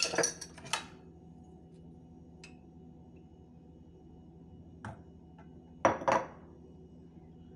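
Metal spoon clinking against a stainless steel mixing bowl, the clinks ringing. A cluster of clinks comes in the first second, then a single light tap about five seconds in and two sharper clinks about six seconds in.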